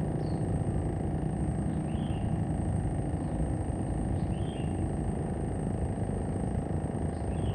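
Steady low rumble of wind on the microphone, with a few faint, short bird chirps spread through it.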